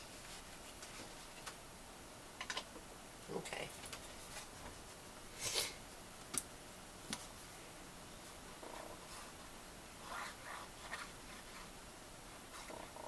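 Cardstock being handled on a craft table: scattered light clicks and taps and a short paper slide, then short scrubbing strokes as a handheld ink applicator is rubbed along the edge of a piece of cardstock.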